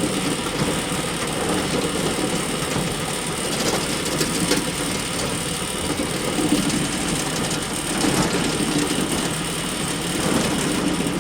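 Hay bale elevator running: a steady, continuous mechanical clatter and rattle of its conveyor chain and drive, unchanging throughout.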